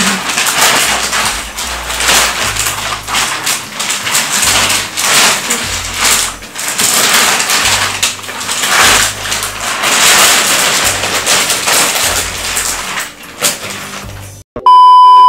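Thick clear plastic mattress wrapping crinkling and rustling as it is pulled and cut away, over background music with a low stepping bass line. Near the end a loud, steady electronic beep sounds for about a second.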